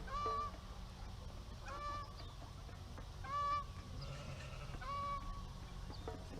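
A farm fowl giving four short, honking calls, evenly spaced about a second and a half apart, over a steady low background rumble.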